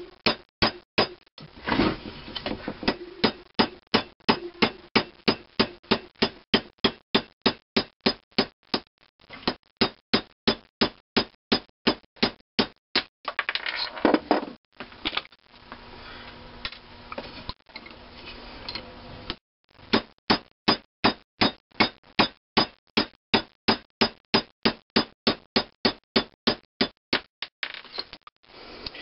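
Small hammer tapping a steel rod at about four light taps a second, driving a sizing ball through a thin-wall bronze valve guide liner to size it. There are a few short breaks between passes.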